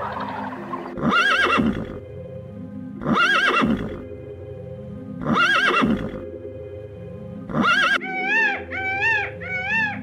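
Pony whinnying four times, about two seconds apart, over steady background music. Near the end, a peacock starts calling in a quick run of short rising-and-falling cries.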